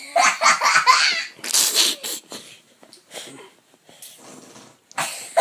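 A young child blowing raspberries, spluttering fart noises made with the lips. A quick run of bursts comes over the first two seconds, then fainter ones, and a voice breaks in near the end.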